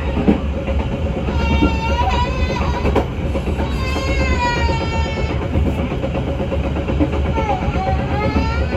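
Passenger train running along the track, with a steady low rumble, and a high wavering voice or melody heard over it at times.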